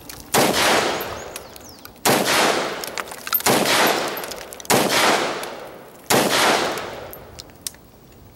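SIG 556xi rifle in 5.56 firing five deliberate single shots, spaced about one and a half seconds apart, each trailing off in a long echo.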